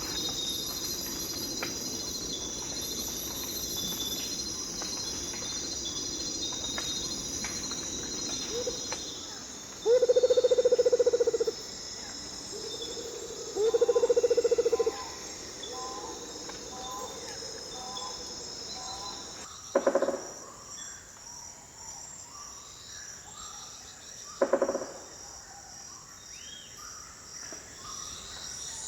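Jungle ambience: a steady chorus of crickets and other insects, with animal calls over it. Two loud, long, low calls come about a third of the way in, followed by a run of short repeated chirps and, later, two sharp short calls.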